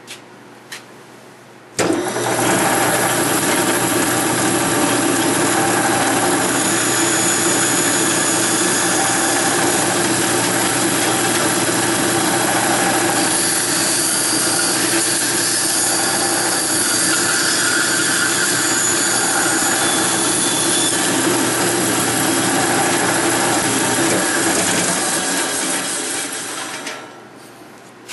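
Bandsaw switched on about two seconds in, running steadily while it cuts through a small block of wood, then switched off near the end and winding down.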